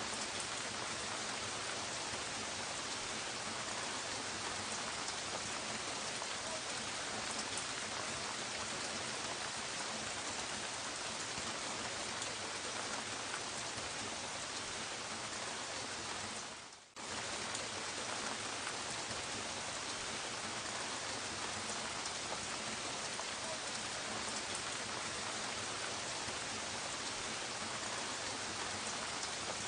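Soft rain falling steadily, an even hiss of many small drops. It fades out and back in within a split second a little past halfway.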